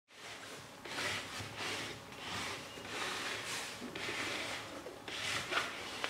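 Soft rubbing and scraping noises of hands handling a small machine, coming in irregular swells about once a second.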